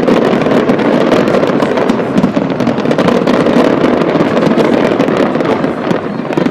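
Fireworks display at full barrage: many rapid, overlapping bangs and crackles merging into a loud, continuous rumble.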